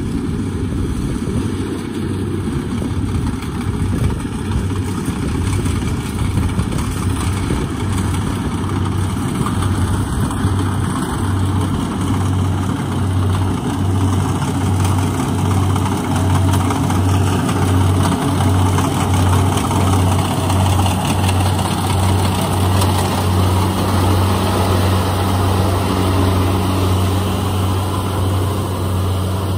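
Kubota DC70 combine harvester's diesel engine running steadily while the machine turns around, with a low, evenly throbbing hum that grows a little louder about halfway through.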